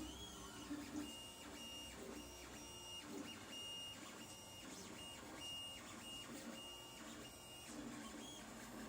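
Lulzbot TAZ 2 3D printer's stepper motors whirring as the print head and bed move, in a string of short high-pitched tones roughly twice a second over a lower whir.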